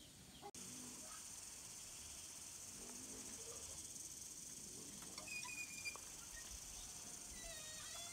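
Steady high-pitched insect chorus starting abruptly about half a second in, with a few short, faint chirps in the second half.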